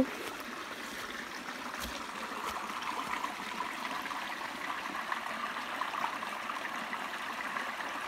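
A shallow creek trickling and burbling over rocks, a low flow after a long dry spell, growing slightly louder as it is approached.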